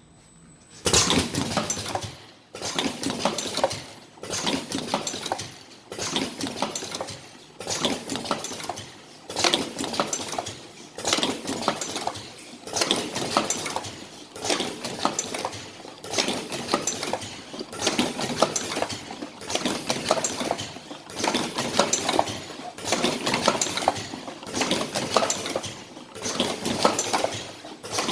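Vertical automatic cartoning machine running, clattering and clinking in a steady cycle that repeats about every second and a half, each cycle one box being formed and filled. It starts about a second in.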